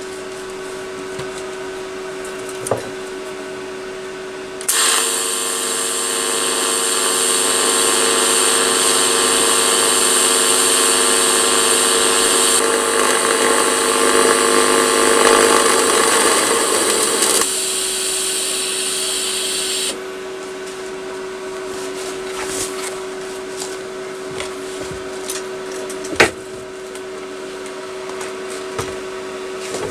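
A handheld electric power tool runs for about fifteen seconds, starting about five seconds in and stopping near the twenty-second mark, with a steady hum underneath throughout. A single sharp click comes near the end.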